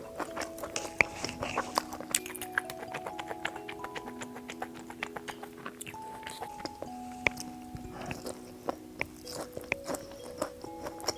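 A person biting and chewing crisp fried skewers close to the microphone: many sharp, irregular crunches. Background music with held notes plays throughout.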